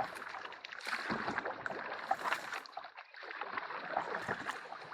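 Canoe moving through a shallow creek: a paddle working the water, with continual splashing and dripping that eases briefly twice.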